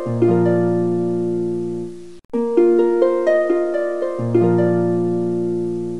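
Background music of plucked notes climbing in a quick arpeggio over a held low chord. It breaks off briefly about two seconds in and starts the phrase over.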